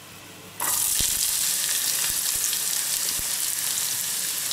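Diced onion dropped into hot oil in a frying pan, the oil bursting into a loud steady sizzle about half a second in, with a few light knocks.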